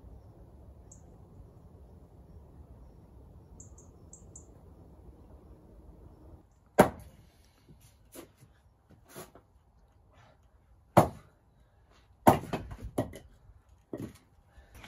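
Axe chopping firewood on a chopping block: sharp single blows of the axe into wood, the loudest about 7, 11 and 12 seconds in, with lighter knocks of wood between them. Before the chopping starts there are about six seconds of faint steady background noise.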